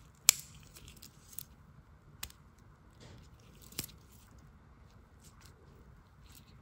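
Victorinox Executive 74mm Swiss Army knife being handled, its tools snapping open and shut against their springs: one sharp snap about a third of a second in, then a few fainter clicks and small ticks.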